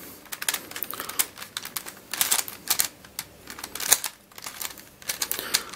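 Plastic twisty puzzle, a MF8 Helicopter Dodecahedron v2, being scrambled by hand: quick, irregular clicks and clacks as its faces are turned, some of the turns stiff.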